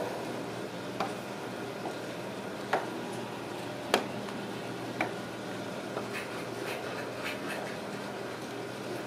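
Ragdoll kitten pawing at a string on a cardboard tube on a wooden floor: scattered light taps and scratches, the sharpest click about four seconds in, over a steady low hum.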